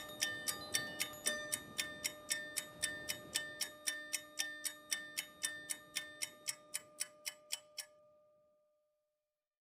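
Steady clock-like ticking, about three ticks a second, over a held tone. The ticks speed up after about six seconds and stop about eight seconds in. The tone fades out and silence follows.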